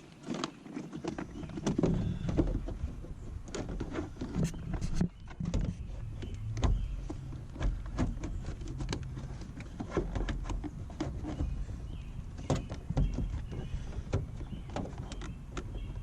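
Plastic clicks, knocks and scraping of a car's A/C blower motor assembly being worked loose by hand from under the dashboard.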